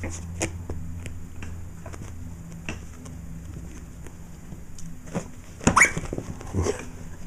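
A Yorkshire terrier and a cat tussling on carpet: scattered soft taps and knocks of paws and bodies over a low steady hum, with a louder flurry of sharp sounds near the end.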